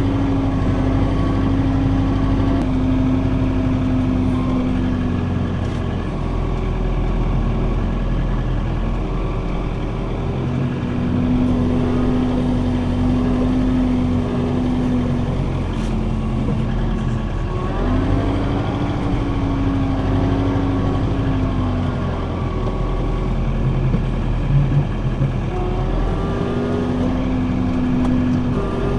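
John Deere 4066 compact tractor's diesel engine running steadily under load while it packs down fill, its engine speed dropping and rising again a few times.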